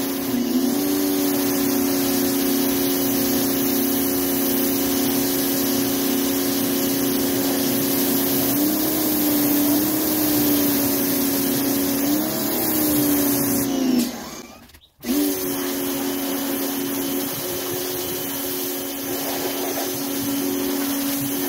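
Pressure washer running, a steady motor hum under the hiss of a high-pressure water jet spraying a car's engine bay. The pitch dips and recovers a few times as the load changes, and the sound cuts out sharply for a moment about two-thirds of the way through before picking up again.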